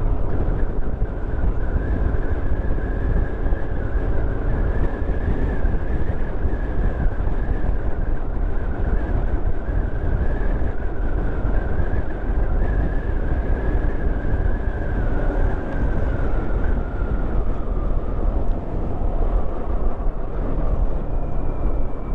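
Motorcycle under way at a steady cruising speed: engine running under a continuous low rumble of wind and road noise.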